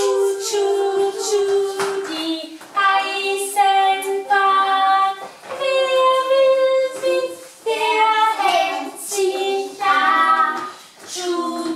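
A group of young children singing a song together in held, melodic phrases with short breaks between them.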